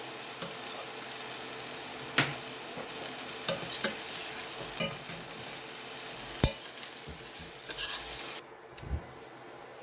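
Fillet steak sizzling in olive oil and butter with garlic and green chillies in a heavy stainless steel pan, with scattered sharp clicks and scrapes of a utensil against the pan. The sizzle cuts off suddenly a little past eight seconds in, followed by one dull knock.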